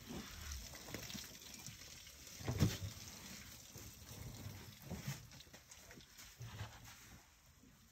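African elephants moving at close range: soft scuffing of trunks and feet in dry dirt and breathing through trunks, with one louder sound about two and a half seconds in.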